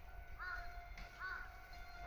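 A crow cawing twice, two short caws about a second apart, over a faint low rumble.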